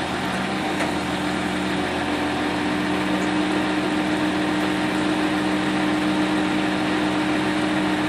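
A vehicle engine running steadily with a constant hum while a hydraulic tilt-tray winch pulls a Toyota Hilux Surf up the tow truck's ramp. A lower tone in the hum drops out about two seconds in.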